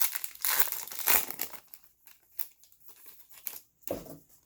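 A trading-card pack wrapper crinkling and tearing as it is handled and opened. The crackling is dense at first, then thins to scattered crinkles and clicks, with one fuller rustle near the end.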